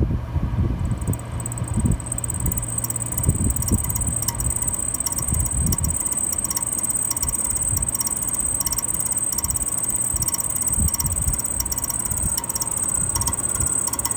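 Failing compressor running with a steady high-pitched whine over uneven low thumping; the sound of a bad compressor.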